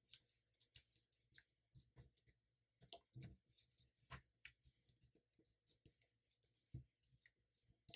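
Faint rustling and crinkling of a sheet of printer paper being folded and creased by hand, heard as short, irregular scrapes and little clicks as fingers press and smooth the folds.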